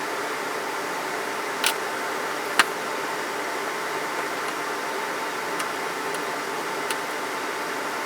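Steady fan-like hiss of background noise, with a few light clicks, the sharpest about two and a half seconds in.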